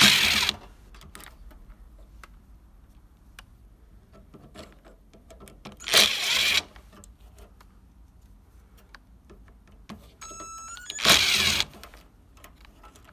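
Cordless electric screwdriver running in three short whirs, about five seconds apart, backing out the screws on the heating-element terminals. Small clicks of the bit and screws come in between.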